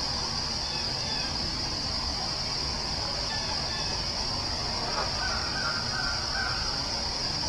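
Daytime forest ambience: a steady high-pitched insect chorus over a constant low rushing background, with a short series of bird calls about five seconds in.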